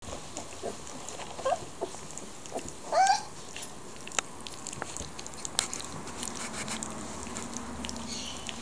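Two-week-old Leonberger puppies squeaking and whimpering: short squeaks about a second and a half in, then a louder rising squeal about three seconds in, with small clicks and rustles of the pups moving on the bedding.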